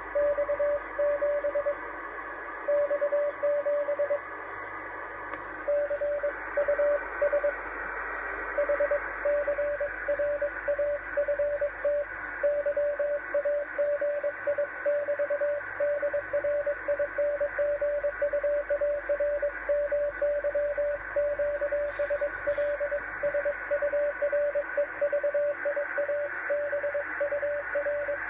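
Morse code (CW) heard on the 10-metre amateur band through a radio receiver: a single mid-pitched tone keyed on and off in dots and dashes over steady band hiss. The sending pauses briefly a few times in the first eight seconds, then runs on without a break.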